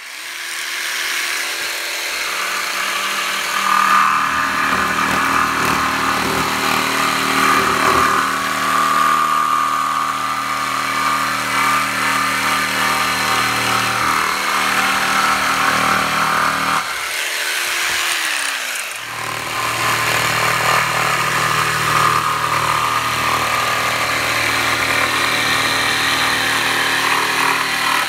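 Corded electric jigsaw cutting along a marked line through an old weathered wooden board, its motor running steadily with the blade sawing through the wood. About two-thirds of the way through it stops for about a second, its pitch falling as it winds down, then starts again and cuts on.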